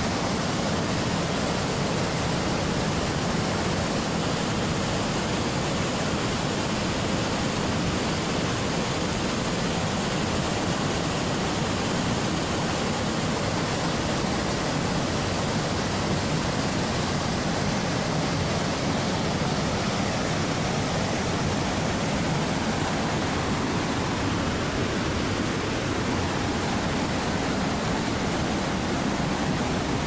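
Steady rush of water from a waterfall and the fast-flowing stream below it.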